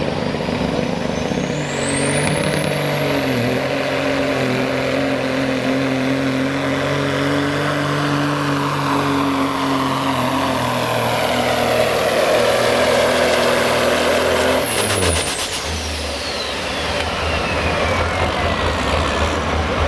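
Turbocharged diesel semi-truck engine at full throttle pulling the sled. A high turbo whistle climbs in the first two seconds and holds steady. About fifteen seconds in, the throttle closes, the engine drops off and the whistle winds down slowly.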